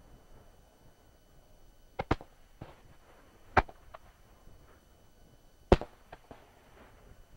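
Aerial fireworks shells going off in sharp booms: a close pair about two seconds in, another about a second and a half later, and the loudest near the six-second mark, with smaller cracks between them.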